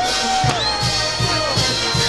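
Fireworks going off over festival band music: gliding whistles, one rising to a high held tone, and a sharp bang about half a second in.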